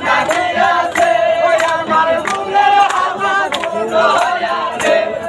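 A group of men singing and chanting together in a loose chorus, with irregular hand claps.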